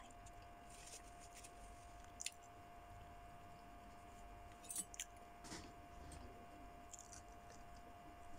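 Near silence with a faint steady hum, broken by a few short soft clicks and mouth sounds of eating a balot (boiled duck egg) with the hands.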